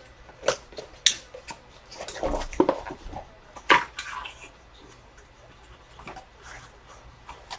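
A sports card box being opened and its packaging and cards handled: scattered sharp clicks and taps with short rustles, busiest a couple of seconds in.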